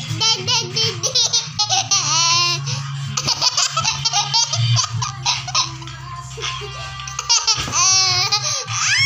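A young boy laughing hard in repeated high-pitched peals.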